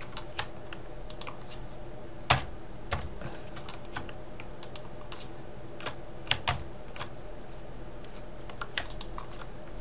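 Computer keyboard keys clicking as Blender shortcuts are pressed: scattered single clicks, the loudest about two seconds in and a close pair about six seconds in, over a steady faint hum.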